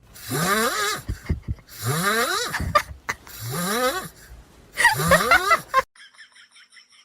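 An animal making four rasping, wheezy calls, each about a second long and rising in pitch.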